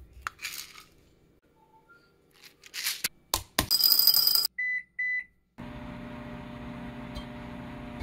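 Unpopped popcorn kernels poured from a jar rattle into a glass bowl, followed by two short beeps from a microwave's keypad. The microwave oven then starts and runs with a steady hum.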